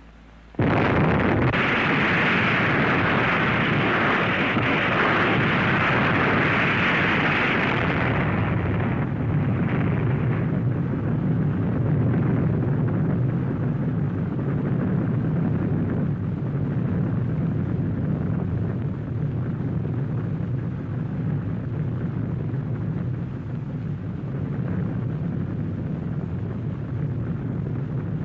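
Atomic bomb explosion: a sudden loud blast about half a second in, a dense hissing rumble for about eight seconds, then a long low rumble that slowly eases off.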